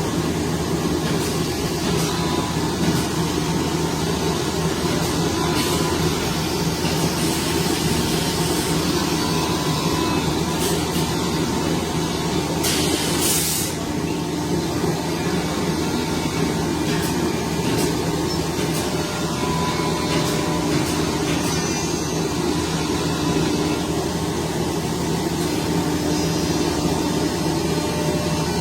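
Workshop machinery running steadily with a low hum, with a few short hisses, the longest about halfway through.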